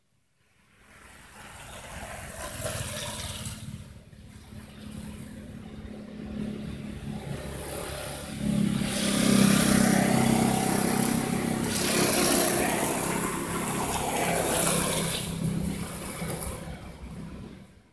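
An engine running steadily, a low hum under a rushing noise. It grows louder about eight and a half seconds in and falls away near the end.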